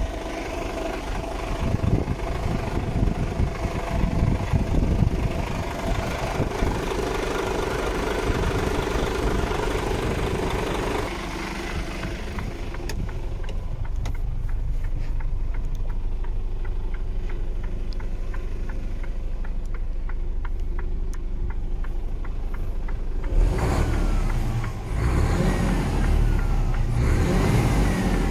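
Diesel engine of a Mercedes-Benz Actros 1843 LS truck, a 12.8-litre straight-six, idling steadily. From about eleven seconds in it sounds more muffled, heard from inside the cab. Near the end the engine is revved, its pitch rising and falling.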